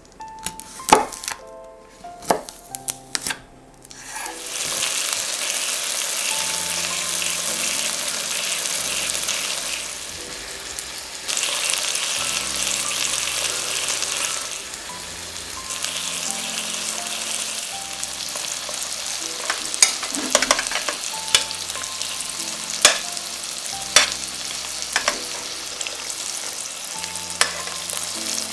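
A few sharp knife taps on a bamboo cutting board as a garlic clove is cut, then chicken breasts frying in oil in a stainless steel pan with a steady sizzle. In the second half a spoon basting the chicken clicks against the pan now and then.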